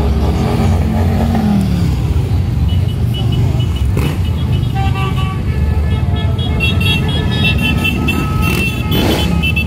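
Large touring motorcycles rumbling past in a steady stream on the highway below, one engine dropping in pitch as it goes by about a second in.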